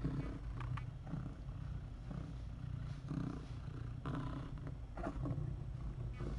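Cat purring close to the microphone in a steady low rumble, with a few brief soft scuffs of movement.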